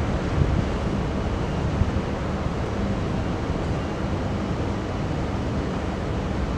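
Pusher tug's diesel engine running with a steady low rumble as it pushes a loaded barge, mixed with wind noise on the microphone.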